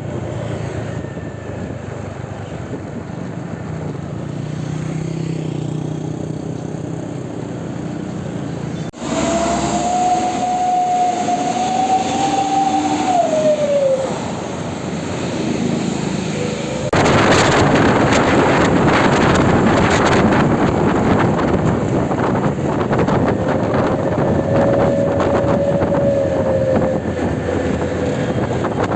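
Buses passing with engine and exhaust noise. About nine seconds in, a long air-horn blast holds for about five seconds, its pitch falling as it ends. From about seventeen seconds in there is a louder rush of engine and exhaust noise, and a second, fainter horn blast comes near the end.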